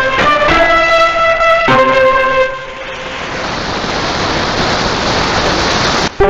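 Instrumental music with held, melodic notes, coming through a radio receiver. About two and a half seconds in, the music gives way to a steady hiss of static that grows brighter for about three and a half seconds. The hiss cuts off abruptly and the music comes back.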